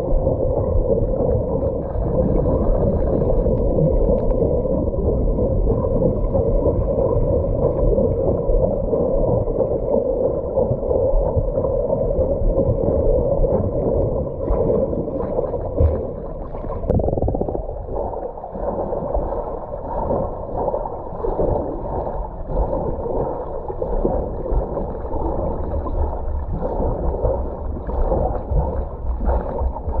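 Underwater sound of a swimmer's kicks churning the pool water, a continuous muffled rushing and gurgling. It starts as a steady freestyle flutter kick, and about halfway through changes to a butterfly (dolphin) kick, where the sound becomes more uneven and rises and falls with each kick.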